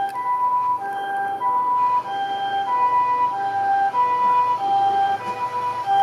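Japanese ambulance's electronic two-tone siren sounding on an emergency run: a high and a low tone alternate, each held about half a second, the "pee-poh" pattern. It grows a little louder as the ambulance approaches.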